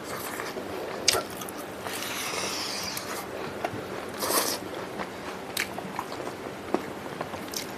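Close-miked eating: a person chewing and biting smoked pork, with irregular wet mouth noises and a few sharp clicks, the loudest about a second in.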